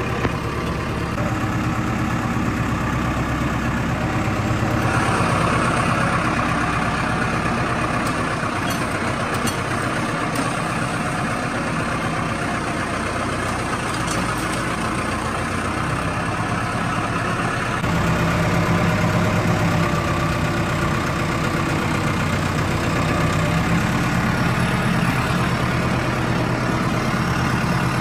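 Mahindra 555 DI tractor's diesel engine running steadily while it drags a rear leveling blade loaded with soil. The engine note changes about five seconds in and grows louder about eighteen seconds in.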